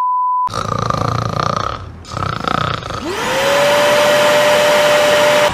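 A short steady test-tone beep, then a rough whirring noise that breaks off briefly, then a vacuum cleaner motor starting up, its whine rising and then holding steady over a loud rushing noise.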